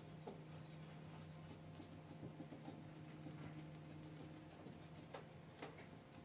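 Faint light rubbing and scratching as fingers press and smooth glazing putty into the rebate of a timber window sash, over a low steady hum, with a couple of soft clicks about five seconds in.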